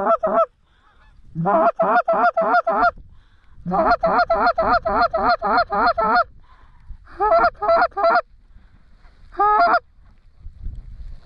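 Loud goose honking in quick runs of short two-toned honks, about four a second, coming in five bursts with short pauses between them, over a low rumble of wind.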